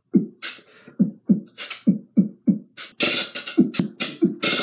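Human beatboxing into a bowl held against the mouth: short low kick-drum thumps about three a second, with hissing snare and hi-hat sounds that come thicker after about three seconds.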